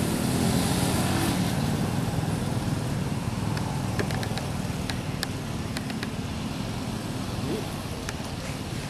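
Low engine hum of a road vehicle going by, fading slowly away, with a few faint clicks in the middle.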